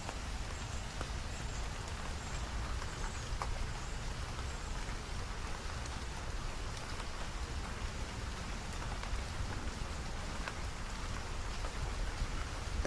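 Steady rain falling, with many scattered close drops ticking, over a constant low rumble.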